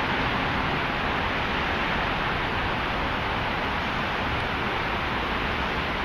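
Steady, even rushing noise of outdoor city ambience, with no distinct events.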